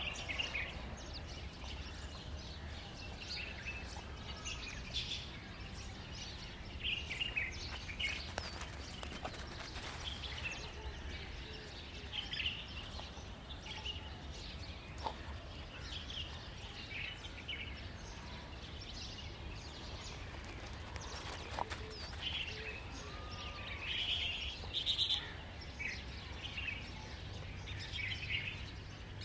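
Birds chirping in short, repeated calls over a steady low hum, with a few faint clicks.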